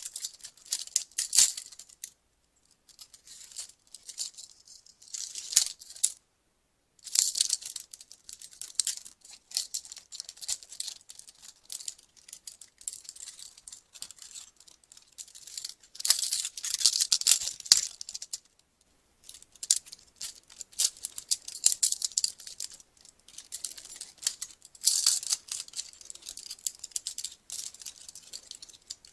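Metal police handcuffs handled in repeated bursts: chain links jangling and the ratchet clicking as the cuffs are worked, each bit of activity lasting one to three seconds with short silent gaps between.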